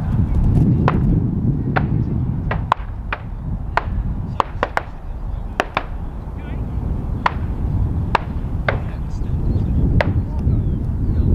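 Gunfire from a nearby gun club: about fifteen sharp shots at irregular spacing, several in quick succession around the middle, over low wind noise on the microphone.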